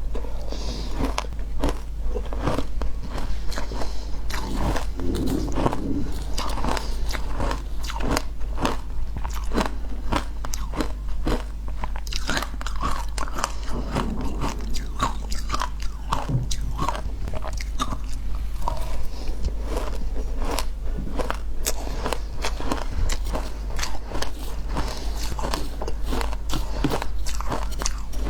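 Ice being bitten and chewed close to the microphone: a dense, irregular run of crunching and crackling with no let-up.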